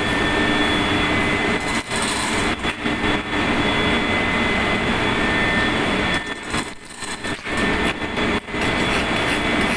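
Steady drone of running machinery in an engine room, with a few steady whining tones over it. The noise dips briefly several times, most deeply around the middle.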